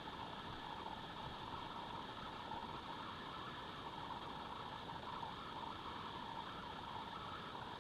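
Steady, even background hiss with no separate sounds standing out.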